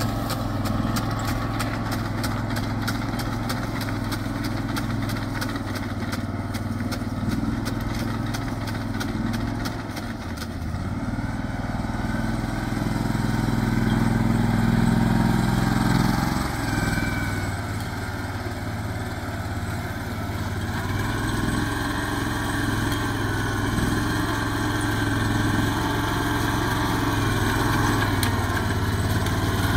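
A farm machine's engine running steadily, with a rapid clicking over roughly the first ten seconds.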